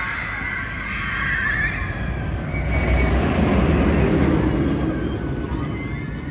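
Riders screaming as a Bolliger & Mabillard mega coaster train drops, then the train's rumbling rush along the steel track swells as it passes close by, loudest about three to four seconds in, and fades.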